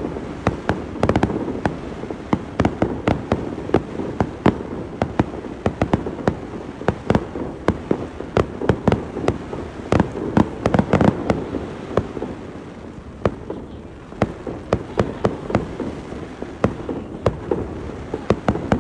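Aerial fireworks bursting overhead: a rapid string of sharp bangs and crackles over a rumbling echo. It eases off for a couple of seconds about three-quarters of the way through, then picks up again.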